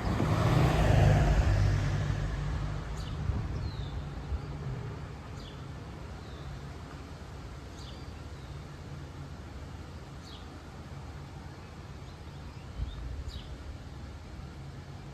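A car goes by and fades away over the first few seconds, leaving a steady low outdoor background. A small bird gives short falling chirps every two or three seconds.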